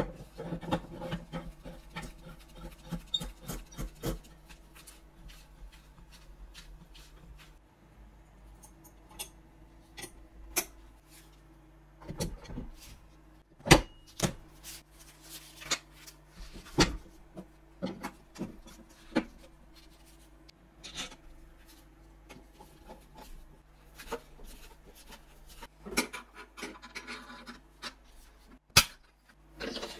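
Steel parts of a bolt-action rifle being handled and fitted during reassembly: scattered metallic clicks and clinks, light rubbing and sliding, and a few sharper knocks of metal on the wooden bench, the loudest about halfway through. A faint steady hum runs underneath.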